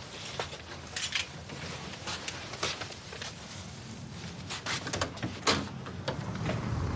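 Scattered soft rustles and light knocks of movement over a low steady room background.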